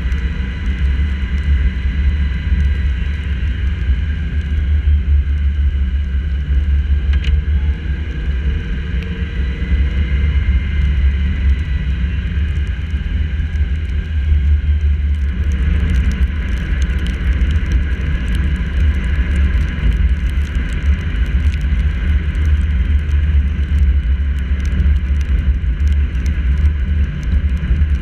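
Car driving on a wet road, heard through a hood-mounted action camera: a steady, heavy low rumble of wind and road noise. From about halfway on, faint ticks of raindrops hit the camera.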